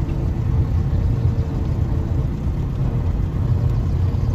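1960s Austin Cambridge four-cylinder engine and road noise heard from inside the cabin while the car drives slowly: a steady low rumble.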